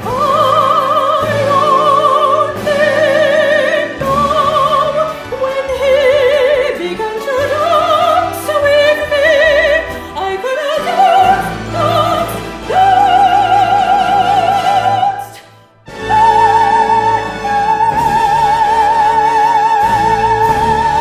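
Operatic soprano singing with wide vibrato over orchestral accompaniment, moving through sustained high notes. After a brief break about fifteen seconds in, she holds one long high note.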